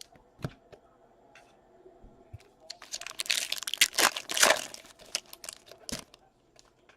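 Foil wrapper of a trading-card pack being torn open and crinkled: a dense crackling for about two seconds in the middle, with scattered light clicks and taps before and after.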